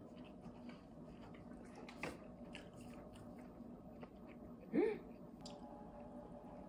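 Quiet chewing and biting of pizza, with small wet mouth clicks. About five seconds in there is a short rising hum of enjoyment from the eater.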